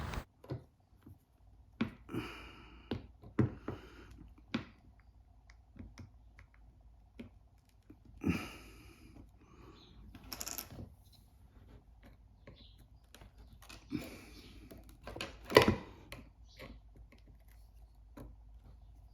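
Irregular small clicks, taps and scrapes of a tool prying at the glued-down screen of an iPhone 12 Pro Max. A few longer scrapes come in between, the loudest near the end.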